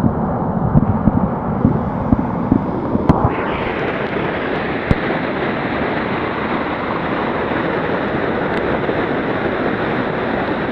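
Mountain stream rushing steadily through a gorge, with low thumps of wind buffeting the microphone during the first three seconds. About three seconds in, the water turns brighter and hissier.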